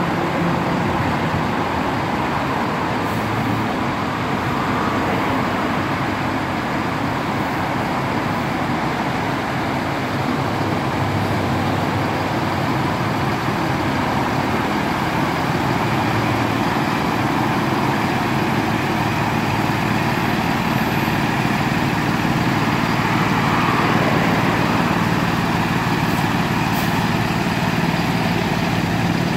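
Heavy diesel truck engines of a fire engine and a Freightliner rescue ambulance running steadily as the ambulance pulls out of the station bay.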